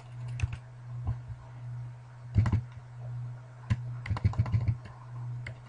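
Computer keyboard keys tapped at irregular intervals, a few separate strokes and then a quick run of several about four seconds in, over a steady low hum.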